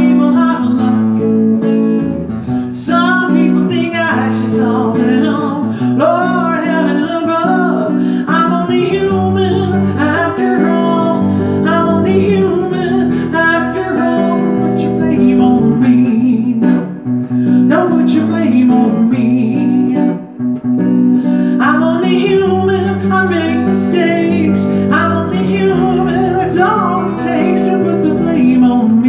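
A woman singing into a microphone, accompanied by chords on an archtop electric guitar.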